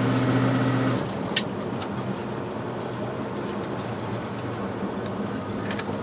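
Jeep Grand Wagoneer being driven, heard from inside the cab. A steady engine note drops away about a second in, leaving running and road noise with a few light clicks.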